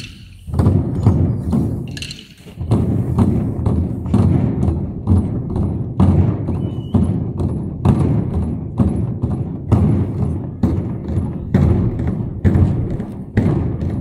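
Heavy drums beaten in a steady rhythm, about one strong deep beat a second with lighter hits between.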